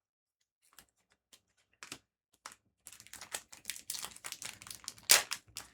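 Foil booster pack wrapper crinkling and tearing as a trading card pack is opened, preceded by a few light clicks of cards being handled. The crinkling becomes dense about three seconds in, with one sharp tear near the end.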